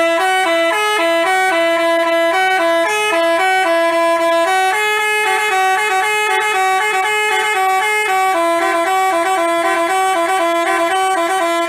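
Basuri telolet bus horn playing a tune, its loud multi-tone notes stepping up and down in a quick melody. It cuts off suddenly near the end.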